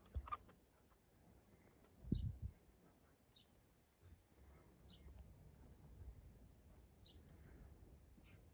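Near silence with a faint short high chirp every second or two, and two brief low thumps, one just after the start and one about two seconds in.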